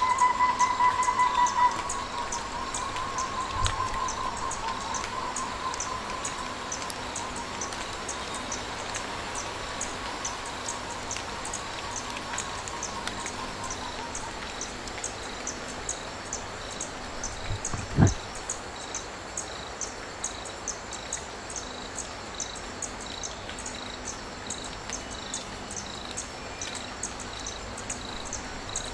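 Crickets chirping in a steady, even rhythm, about two chirps a second, with a slower second chirp pulsing underneath. A wavering whistle-like tone fades out about halfway through, and a single sharp knock sounds about two-thirds of the way in.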